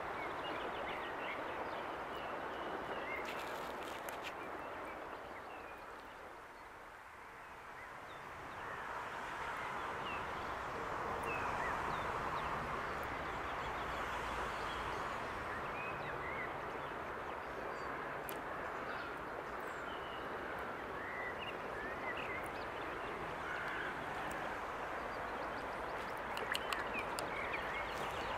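Woodland outdoor ambience: a steady rushing background that fades about seven seconds in and swells again, with faint bird chirps scattered through and a few light clicks near the end.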